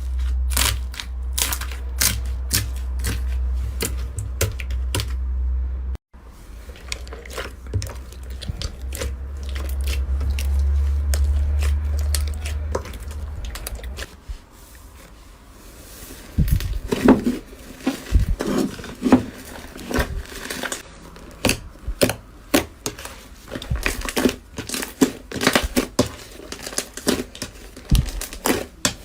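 Slime being squeezed and pressed by hand, with rapid crackling and popping clicks from air bubbles bursting in it. A low steady hum runs under the first half. The sound cuts off abruptly about six seconds in, and in the second half the pops are lower and more squelchy.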